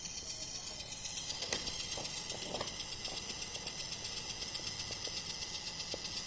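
High-pitched, rapidly pulsing electronic screech from a dismantled HP Pavilion 15 laptop's motherboard, a fault noise that persists with only the bare minimum attached to the board. A few faint clicks sound early on.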